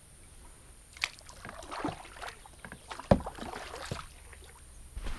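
Kayak paddle strokes dipping and splashing through shallow water along reeds, in an irregular run of strokes, with one sharp knock about three seconds in.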